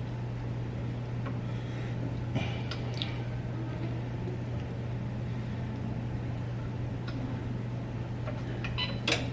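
Steady low hum, with a few faint clicks and rustles of handling about two and three seconds in and a sharper click near the end.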